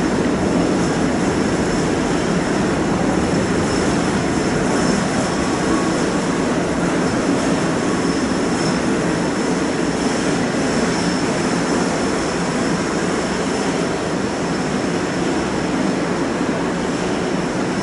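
Kintetsu 5820-series electric train in a station, a steady rumble that eases slightly toward the end, with a faint high steady whine above it.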